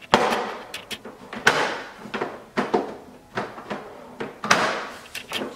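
Hard plastic parts of a Graco Blossom high chair knocking and scraping together as the backrest is fitted onto the seat, its pegs pushed into their holes. About six irregular knocks and rubbing sounds.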